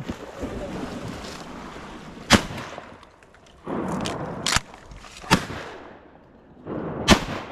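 Shotguns firing at ducks: four sharp shots at uneven intervals, the first about two seconds in and the last near the end.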